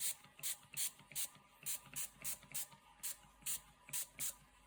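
Small spray bottle of tea pumped in quick succession, about a dozen short hissing sprays, two or three a second, misting card to stain it and make it look old.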